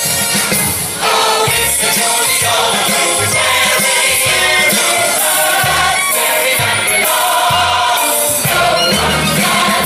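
Music with a choir singing over a bass line; a new, louder section starts about a second in.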